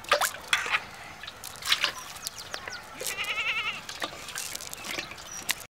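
Freshly caught fish flapping in a shallow bowl of water, with several sharp splashes in the first two seconds. About three seconds in, a short, quavering animal call sounds in the background.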